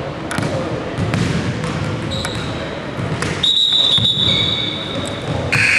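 A basketball bouncing repeatedly as it is dribbled on a hardwood gym floor, the hall echoing, with voices in the background. A steady high tone sounds for about a second past the middle.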